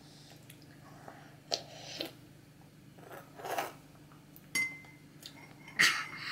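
Metal spoon clinking and scraping against a small ceramic bowl, with about five separate light clinks.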